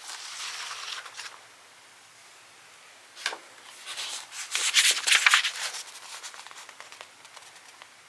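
Rustling and crinkling handling noise: a soft hiss in the first second, a click about three seconds in, then a dense run of crackly rustling, loudest about five seconds in.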